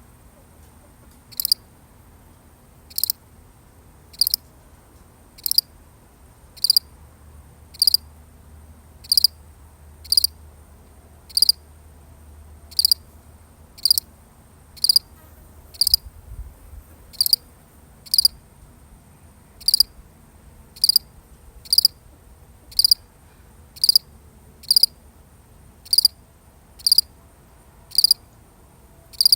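A single cricket chirping steadily: short, high chirps repeated about once a second, each one alike.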